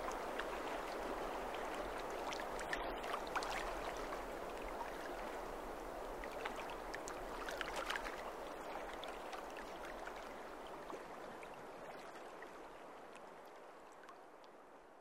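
Running water like a stream, a steady rushing with small trickles, fading out slowly.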